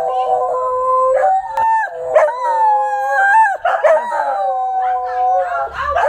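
Dogs howling together in long, drawn-out howls that overlap and waver in pitch.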